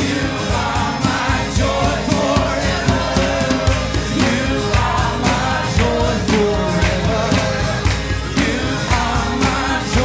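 Worship band music with sung vocals over a steady drum beat.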